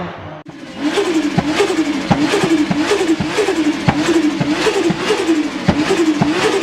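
Turbocharged car engine blipped over and over, about twice a second. Each blip rises and falls in pitch and ends in a sharp crack, with turbo flutter as the throttle closes.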